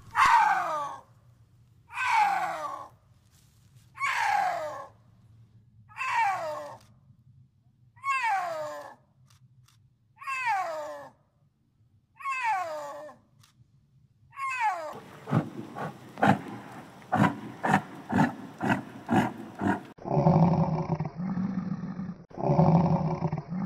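Snow leopard calling over and over: seven falling, drawn-out yowls about two seconds apart. About two-thirds of the way in, a domestic yak takes over with a quick run of short, clipped sounds, then three longer low calls.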